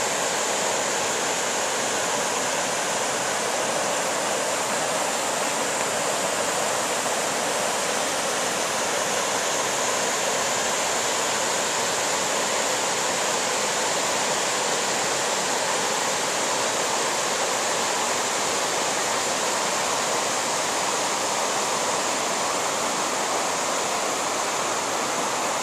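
Shallow mountain stream rushing over rocks and boulders in white-water riffles: a steady, unbroken rush of water.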